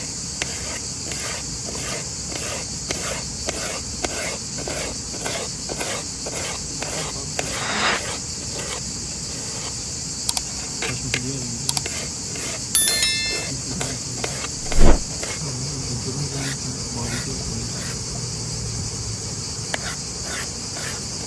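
Crickets chirping steadily in a continuous high chorus. Faint voices and a few light clinks sit under it, and there is one sharp, loud thump about fifteen seconds in.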